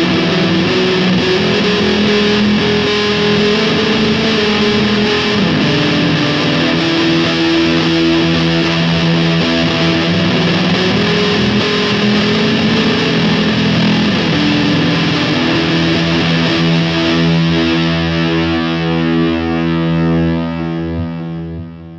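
Fender Telecaster Thinline '72 electric guitar played on its neck humbucker with an overdriven tone, picked chords and notes ringing together. A last chord rings out and fades near the end.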